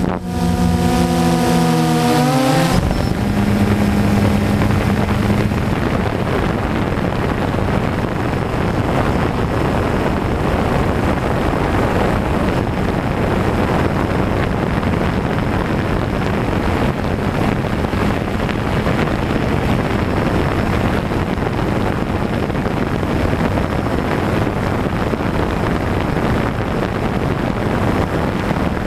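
DJI Phantom quadcopter's motors and propellers, heard from its onboard camera. A buzzing whine dips and rises in pitch for the first couple of seconds as the motor speed changes, then settles into a steady rush of propeller noise and wind.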